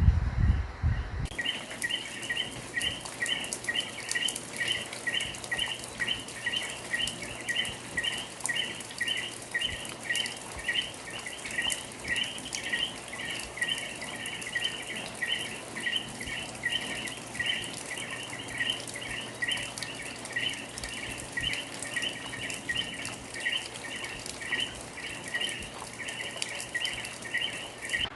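Rain pattering, with a small animal's chirping call repeated steadily about twice a second. There is a brief low thud at the very start.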